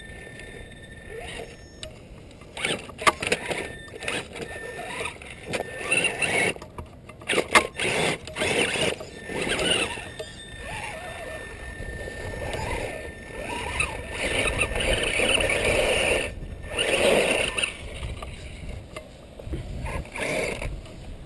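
Axial Wraith RC rock crawler's 27-turn brushed motor and geared drivetrain whirring in short, uneven bursts as it climbs over boulders, with scattered knocks and scrapes of its tyres and chassis against the rock.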